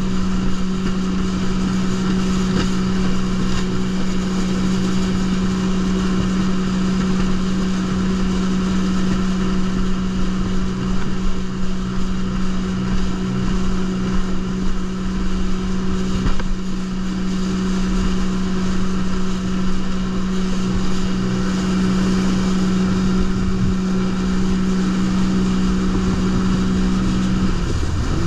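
Jet ski engine running steadily at speed over a steady rushing noise. Just before the end the engine note drops briefly and then picks back up.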